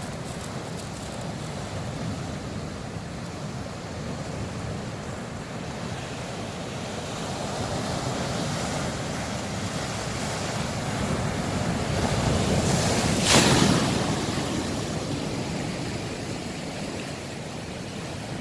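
Winter sea waves breaking on the shore: a steady wash of surf that builds over several seconds into one loud crashing wave about two-thirds of the way through, then eases back.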